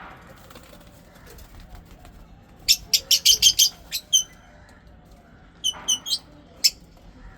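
Lovebirds chirping: a quick run of short, sharp, high-pitched chirps about three seconds in, then a few more scattered chirps around four and six seconds.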